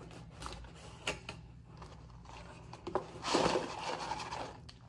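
Handling noises from food and drink items on a table: several sharp clicks and taps, then a louder rustle lasting about a second, starting about three seconds in.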